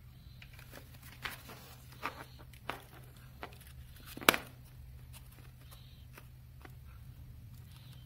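Cardboard craft pieces being handled and pressed together by hand: scattered light taps, scrapes and rustles, with one sharp click a little past four seconds in, over a steady low hum.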